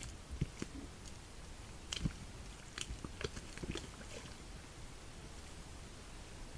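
Red deer stag pawing and settling into a mud wallow: irregular wet squelches and slaps of mud. They come thickly for the first four seconds and thin out once it lies down.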